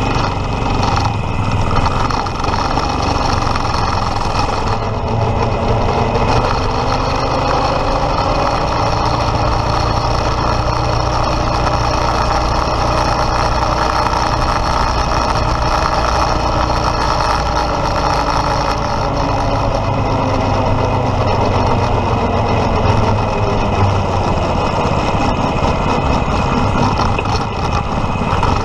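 Predator 212 single-cylinder gas engine on a Power Wheels kart running steadily, its pitch rising and then easing back down once through the middle.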